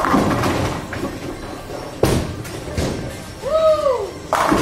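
Bowling ball striking the pins, a sudden crash with about a second of clattering pins, followed by further sharp crashes of balls and pins about two seconds in and near the end. A brief rising-and-falling voice call comes in between.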